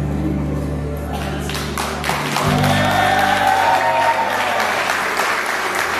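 Audience applause breaking out about a second in as the music's last low held notes die away, with some cheering mixed in.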